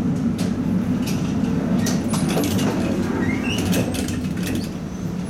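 Tatra T3 tram running, heard from inside the car: a steady low rumble from wheels and running gear, with scattered sharp clicks and rattles and a few short high squeaks.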